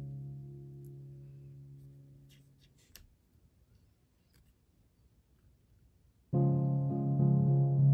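Background music: a held chord fades away over the first three seconds, then near quiet with a few faint ticks, and piano music starts abruptly about six seconds in.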